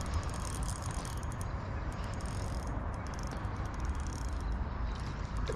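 Spinning reel clicking in irregular ticks while a hooked bream is played on light tackle, over a steady low rumble.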